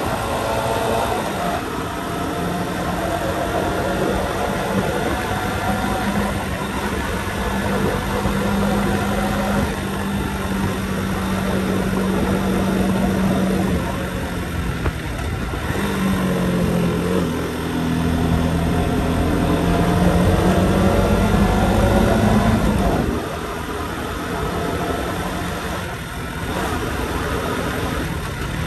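Motorcycle engine running under way, its note rising and falling with the throttle as it takes the bends, with wind and road noise rushing past.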